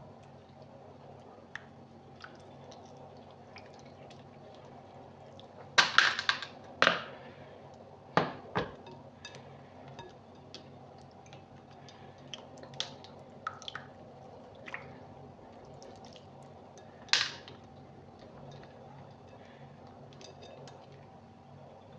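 Hands squeezing and kneading soaked tamarind pulp in its soaking water in a bowl, making wet squelches and drips, with a few louder splashy squelches about six to eight seconds in and again near seventeen seconds. A faint steady hum runs underneath.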